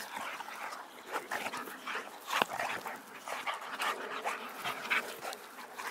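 Two boxer dogs play-wrestling, making quick, irregular vocal noises and heavy breathing, with a sharp click about two and a half seconds in.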